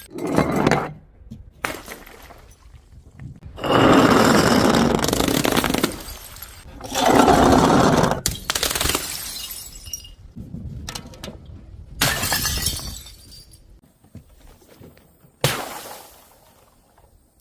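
Glass breaking and shattering, several separate smashes one after another. The longest and loudest two, about four and seven seconds in, each go on for a couple of seconds.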